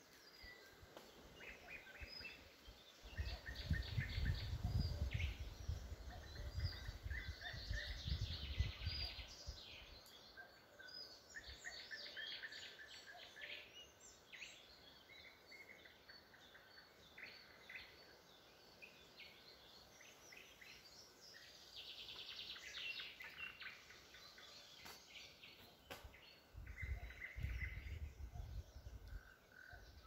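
Several woodland songbirds singing at once, with overlapping trills and chirps. A low rumble swells twice, from about three to ten seconds in and again near the end, and is the loudest part of the sound.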